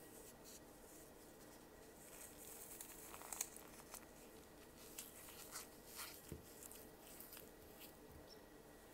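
Faint crunching and crackling as fingers squeeze and crumble a block of damp floral foam coated in white powder and paint, a scatter of small crackles from about two seconds in until near the end.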